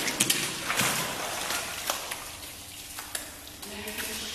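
Pool water splashing and sloshing as a collie in a life jacket swims in a hydrotherapy pool, with sharp splashes in the first couple of seconds settling into gentler lapping.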